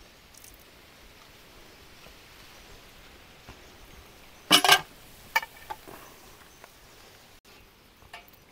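Quiet rural background with one short, loud animal call about halfway through, followed by a few light clicks.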